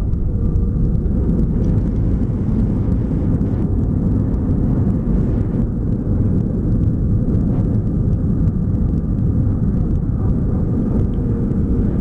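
Airliner during landing: a loud, steady low rumble with a faint steady hum above it, unbroken throughout.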